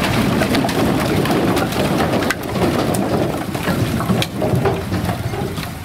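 Sawn firewood log rounds sliding and tumbling out of a tipped dump truck bed onto a pile: a dense, continuous run of wooden knocks and thuds that thins out near the end as the bed empties.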